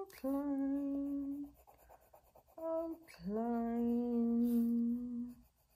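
A woman humming a slow tune in long held notes: a long note, a short higher note, then a longer, lower note that ends shortly before the close.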